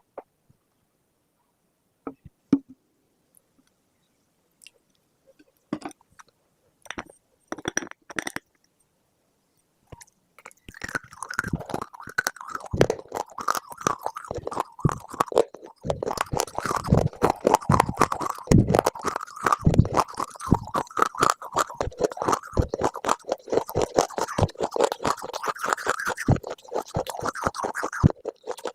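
Close-up crunching and crackling: a few scattered sharp crunches at first, then from about ten seconds in a dense, continuous crackle.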